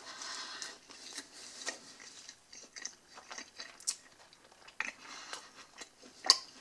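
Close-up chewing of a mouthful of burger: wet mouth smacks and clicks at irregular intervals, with one sharper click near the end.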